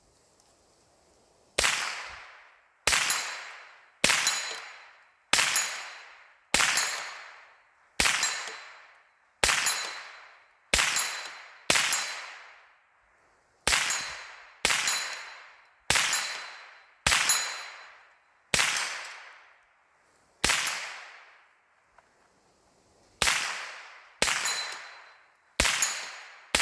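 Rifle fire from an AR-15 with a CMMG kit: about eighteen single shots at roughly one-second intervals, each report echoing away, with two brief pauses in the string.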